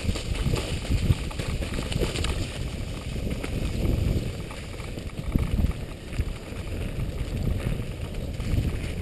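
Mountain bike running fast down a leaf-covered dirt trail: tyres rumbling over the ground and wind buffeting the microphone, with scattered knocks.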